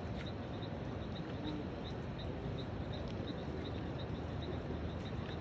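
A rapid series of short, high chirps, about three a second, from a calling animal, over a steady low rumble.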